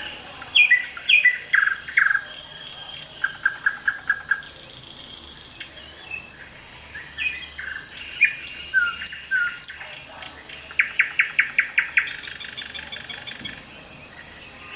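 Several wild birds calling and singing together: clear falling whistled notes, and quick trilled runs of short notes, each run about a second long. Under them runs a steady high-pitched drone, and twice a harsher high buzz comes in for a second or two.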